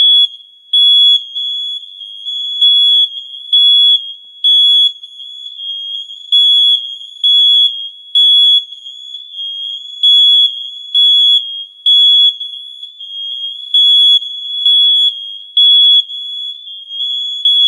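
Several interconnected home smoke alarms sounding together during a test: one high-pitched alarm tone that never quite stops, with louder pulses about once a second as the units sound slightly out of step.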